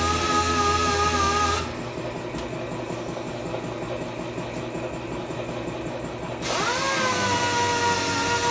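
Handheld power tool running with a steady whine. It drops away about a second and a half in to a quieter, rougher sound, then speeds back up with a quick rise in pitch about six and a half seconds in and runs steadily again.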